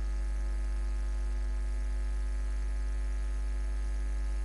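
Steady electrical mains hum, strongest at the low end, with a thin buzz of evenly spaced overtones above it and nothing else happening.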